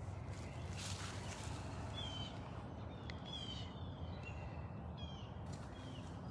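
Birds calling: short, falling whistled notes about every second or so, some with a quick trill above them, over a steady low rumble. A brief rustle about a second in.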